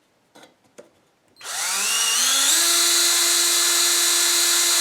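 Power drill driving screws into the wooden sled, after a couple of light clicks. The motor starts about a second and a half in, rises in pitch for about a second, then runs steady.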